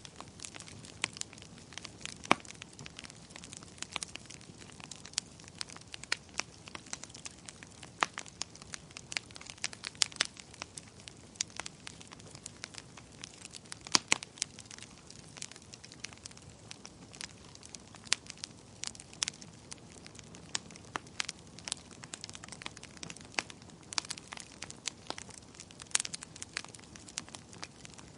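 Wood fire crackling: frequent sharp, irregular pops and snaps over a soft steady hiss.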